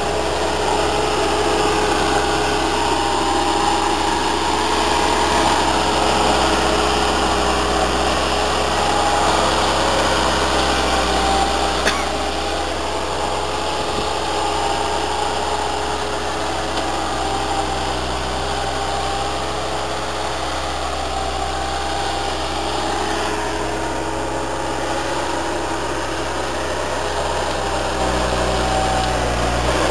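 Bobcat 873 skid steer's diesel engine running steadily with a high whine over it; the note drops a little about twelve seconds in, just after a single sharp click, and picks up again near the end.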